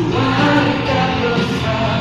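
Background music with singing: a song with held sung notes over a full band accompaniment.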